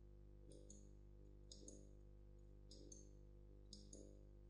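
Faint computer mouse clicks: four double clicks, each a press and release, about one a second, over a faint steady low hum.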